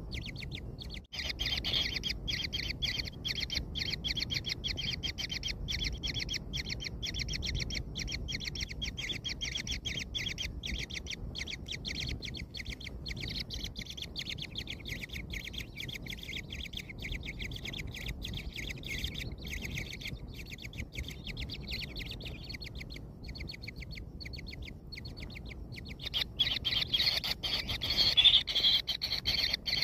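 Kingfisher nestlings calling in the nest burrow: a continuous fast run of high chirps with a short break about a second in, growing louder near the end.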